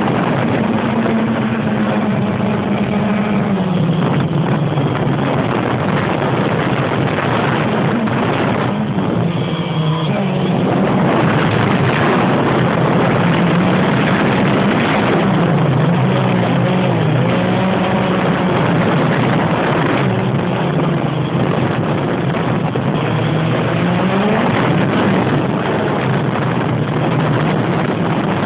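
DJI Phantom quadcopter's electric motors and propellers buzzing, heard close up from the drone itself. The pitch of the hum rises and falls repeatedly as the motors change speed in flight.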